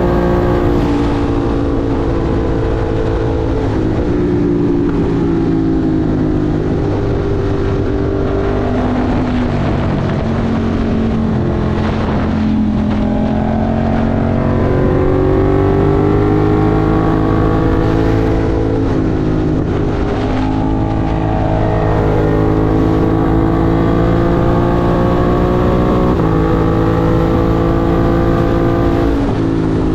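Ducati Monster 1200 R's 1198 cc L-twin engine under way, heard from on the bike. The engine note falls off early on, then climbs again from about the middle, with a couple of sudden gear-change steps, and drops back near the end.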